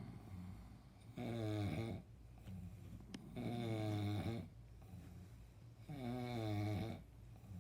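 A man snoring steadily, with three pitched snores about a second long, each roughly two and a half seconds after the last, and quieter breaths between them.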